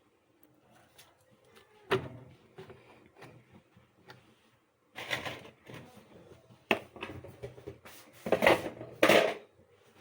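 Kitchen handling sounds: a sharp knock about two seconds in, then clicks and a few louder clattering, rustling bursts in the second half as dishes and utensils are moved about.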